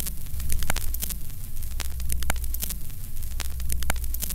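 Steady low electrical hum with scattered sharp clicks and crackle: a worn-videotape noise effect laid under a title card.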